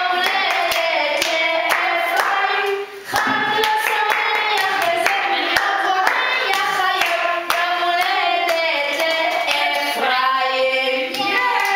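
Women and young children singing a song together, with hands clapping along in a steady beat.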